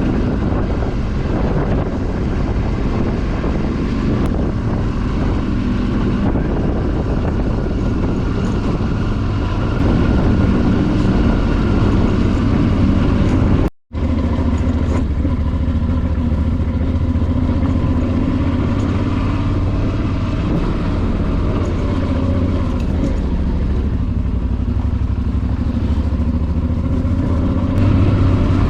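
Suzuki V-Strom 650's V-twin engine running steadily while riding, a little louder for a few seconds before a sudden brief cut about halfway through.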